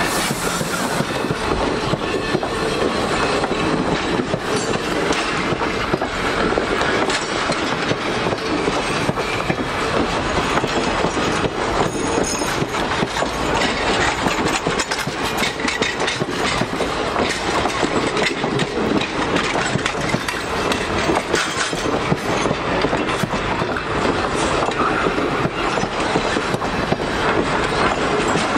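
A steam-hauled excursion train's tender and passenger coaches rolling past close by, their steel wheels on the rails making a steady, dense rattle of many quick clicks.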